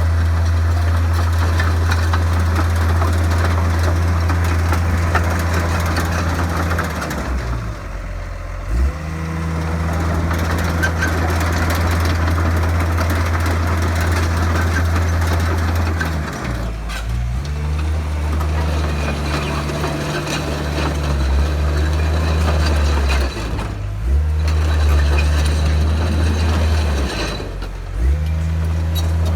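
Komatsu D51PX-22 crawler bulldozer's diesel engine running steadily under work, with a continuous mechanical clatter. Four times the engine note sags briefly and then climbs back up.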